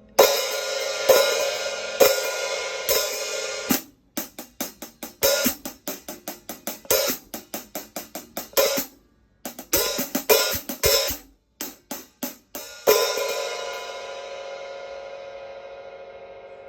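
Zildjian K Fat Hats hi-hat cymbals played with a stick. First come a few loud strikes that ring on, then a quick run of short, tight strikes with brief pauses. Near the end, one strong strike is left to ring and slowly fade.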